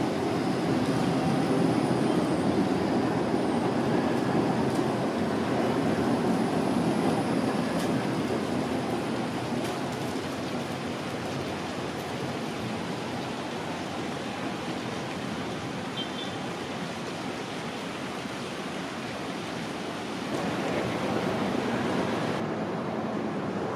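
Bombardier Flexity Outlook low-floor tram rolling past on its rails: a steady rumble and rush, loudest over the first several seconds and easing as it draws away. A different, steadier street ambience takes over near the end.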